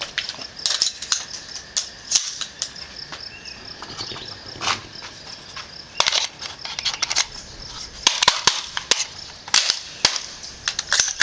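Gunshots: many sharp cracks at irregular spacing, with quick runs of several shots about six and eight seconds in.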